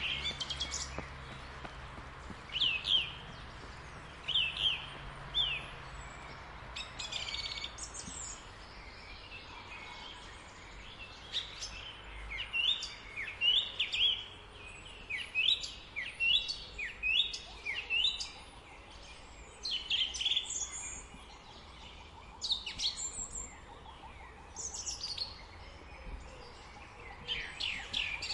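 Small birds chirping and singing: a run of short, high, quick calls, thicker in the second half, over a faint steady outdoor background.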